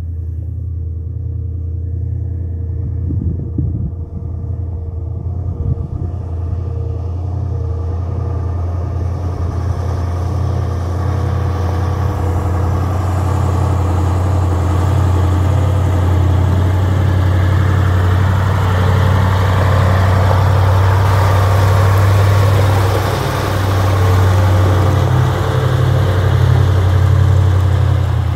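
Air-cooled Magirus-Deutz V8 truck engine running under way, a steady low drone. A hiss of road and wind noise grows louder over the first twenty seconds or so.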